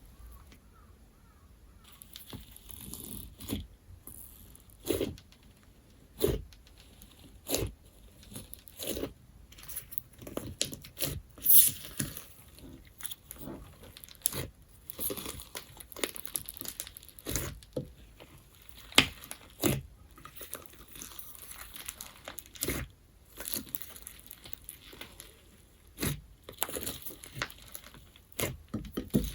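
Crunch slime, a glossy glue slime packed with foam beads, being squeezed, pressed and pulled by hand, giving irregular crackles and crunchy pops with louder pops about every second. The first two seconds are quieter.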